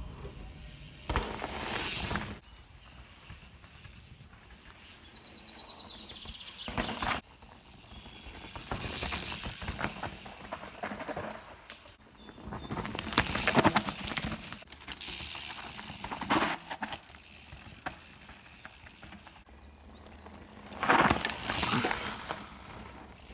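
Mountain bikes riding past on a dirt trail, their tyres rushing over dirt and roots. This happens several times, the loudest about halfway through and near the end as a rider goes close by.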